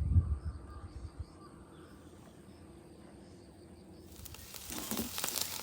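Faint insects chirping, with a steady high trill and a slower row of evenly repeated chirps over low thumps in the first second. About four seconds in, a broad hissing noise abruptly takes over.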